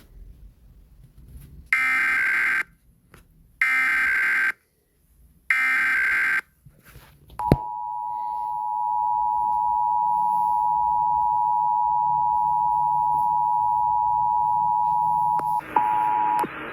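Emergency Alert System test tones on a radio broadcast. Three short bursts of screeching SAME digital header data come first. After a click, the EAS two-tone attention signal (853 and 960 Hz) holds steady for about eight seconds and drops out briefly near the end.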